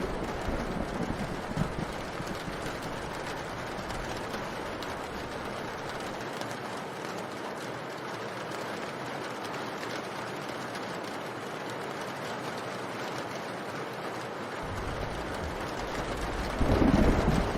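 Steady rain falling, an even hiss, with a short low rumble of thunder about a second before the end.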